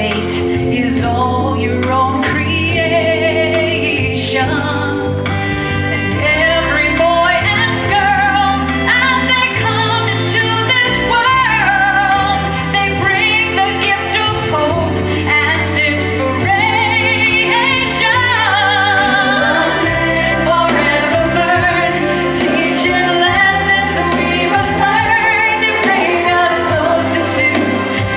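A woman singing solo into a handheld microphone, long held notes with vibrato, over instrumental accompaniment with a steady bass line.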